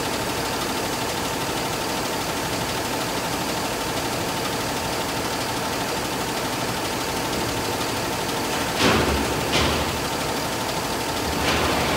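Cummins ISB6.7 inline-six turbodiesel idling steadily, with a thin steady whine through it. Three brief louder bursts stand out about nine, ten and eleven and a half seconds in.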